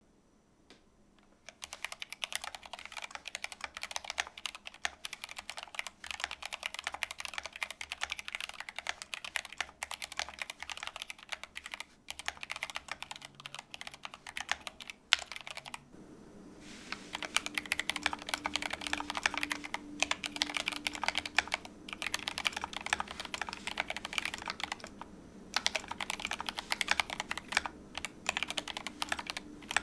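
Typing on a GMMK Pro mechanical keyboard with Gateron Black linear switches and Glorious PBT keycaps: a fast, continuous run of key clacks. There is a pause of about a second midway, then typing resumes.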